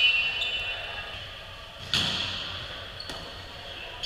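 Volleyball being hit during a rally in an echoing gym: a sharp hit about two seconds in and a lighter one about a second later, each ringing on in the hall. A brief high squeak sounds at the start.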